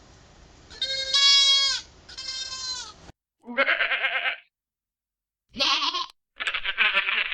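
Goats bleating, five bleats in all. The first two are clear and high-pitched over a faint hiss; after an abrupt change about three seconds in, three rougher, quavering bleats follow, the last still going at the end.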